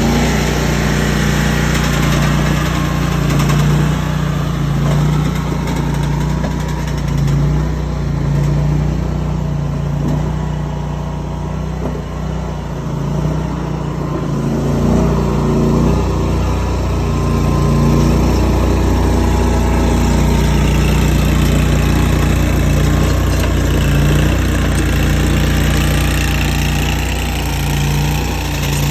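Engine of a mini tracked skid steer running steadily as the machine works. Its note wavers and drops briefly about halfway through, then settles again.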